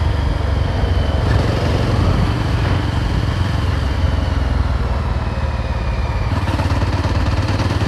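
A Yezdi Roadster's single-cylinder engine running steadily as the motorcycle is ridden, its firing pulses dense and even.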